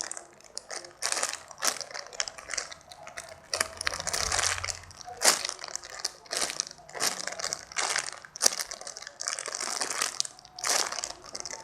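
Hands repeatedly squeezing and kneading a large orange-shaped foam squishy toy close to the microphone: a string of soft rustling, crinkling squishes, roughly one every half second to second.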